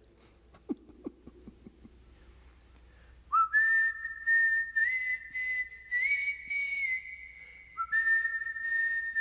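Whistled melody starting about three seconds in, held notes stepping up and down in pitch, after a few faint clicks.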